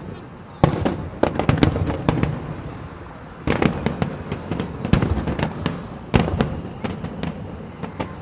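Aerial fireworks shells bursting in volleys of sharp bangs in quick succession, with fresh clusters just under a second in, at about three and a half seconds and around six seconds.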